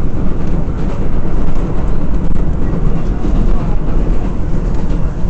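Inside an R188 subway car on the 7 line, the train running: a loud, steady rumble of wheels on rail, with faint clacks running through it.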